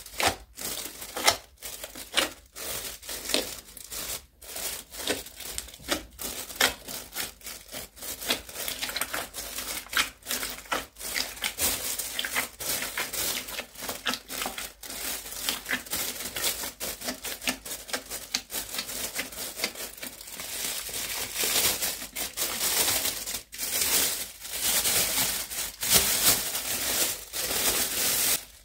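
A mass of old slime squeezed and squished by hand inside a plastic bin liner: irregular sticky clicks and pops mixed with the crinkling of the plastic bag. The crinkling grows denser over the last several seconds as the bag is lifted and gathered.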